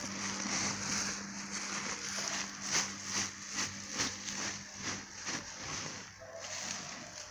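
Chopped grass being shaken out of a woven plastic feed sack into a wooden trough: the sack and falling grass rustle in a series of shakes, about two or three a second, through the middle. A steady low hum sits underneath and stops a little past halfway.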